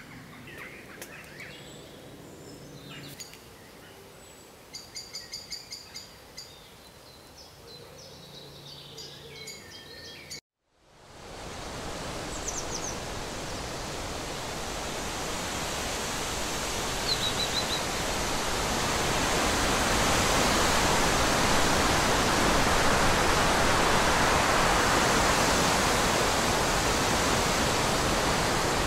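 Quiet woodland background with a bird singing a short run of repeated notes. After a sudden cut to silence, a steady rushing noise fades in and holds, with a couple of faint bird chirps over it.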